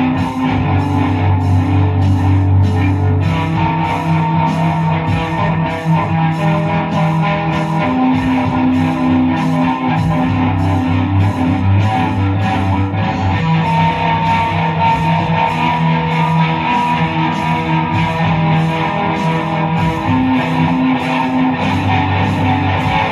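Electric guitar playing a rock instrumental over a steady beat.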